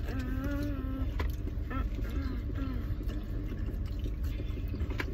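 Steady low rumble of a car driving, heard inside the cabin, with a faint voice in the first second and a few light clicks.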